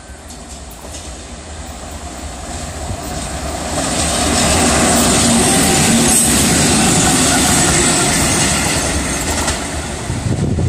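A pair of electric locomotives running light past on the track, wheels rumbling and clicking over the rail joints. It grows louder over the first few seconds, is loudest as they pass, and cuts off abruptly near the end.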